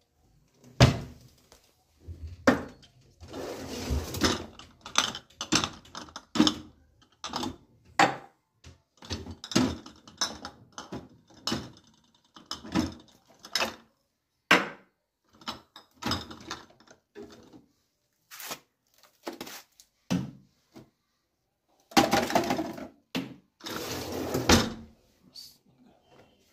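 Kitchen handling sounds: irregular knocks and clatters of containers and utensils, with a few longer rustling or pouring stretches, as ingredients are added while marinating chicken.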